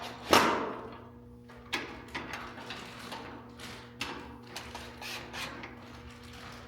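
Stand parts and hardware being handled during assembly: one loud knock with a short ring just after the start, then scattered lighter clicks and knocks.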